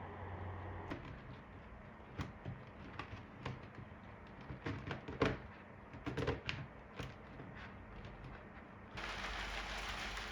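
A run of light clicks and knocks, then about nine seconds in a steady rush of air starts suddenly: a 3D-printed air purifier's fan switching on.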